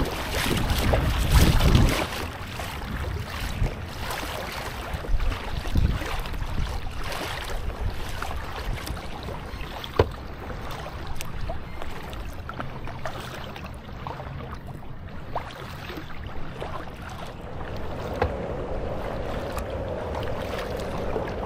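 Kayak paddle strokes dipping and splashing in calm water, with wind buffeting the microphone during the first two seconds and a single sharp click about ten seconds in.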